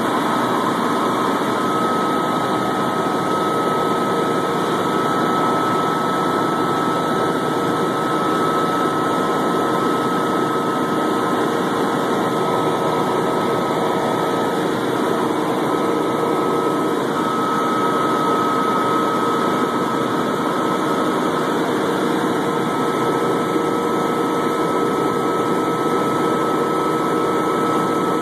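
Helicopter in cruising flight heard from inside the cabin: a steady drone of engine and rotor with a thin high whine running through it.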